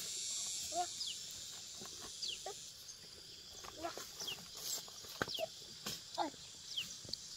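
Faint voices and scattered short animal calls, with quick high chirps and a few sharp clicks, over a steady high hiss that dies down about three seconds in.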